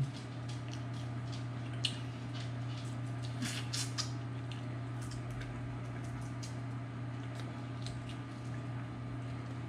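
Eating sounds at a seafood meal: scattered soft wet clicks and smacks, a small cluster about halfway through, over a steady low hum.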